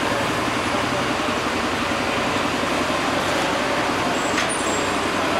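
Fire engine's diesel engine running steadily at idle, a continuous low pulsing engine sound.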